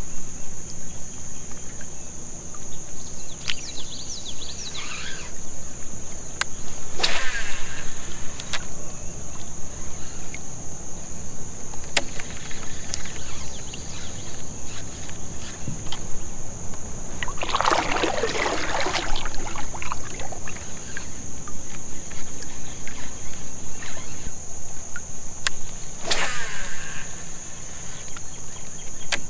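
Steady high-pitched drone of crickets or cicadas, over a low rumble. A few short swishing sounds from fishing in a kayak come through on top, the longest and loudest about two-thirds of the way in, along with a few sharp clicks.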